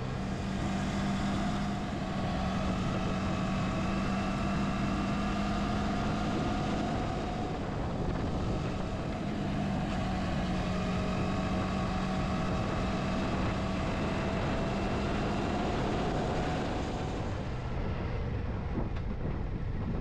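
Suzuki V-Strom 250 motorcycle's parallel-twin engine running at steady road speed, its pitch holding nearly level over a rush of road and wind noise. It eases off near the end.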